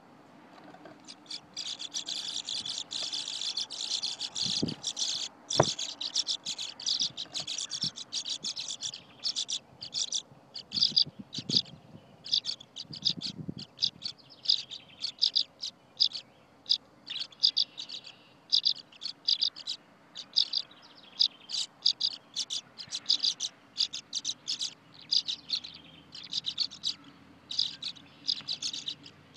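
Tree swallows calling: a dense run of high twittering that breaks into separate quick chirps, about two a second, from about ten seconds on. These are the begging calls of young being fed by their parents. A couple of sharp knocks come about five seconds in.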